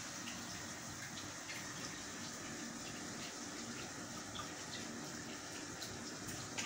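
Aquarium water bubbling and trickling steadily, with scattered faint small pops.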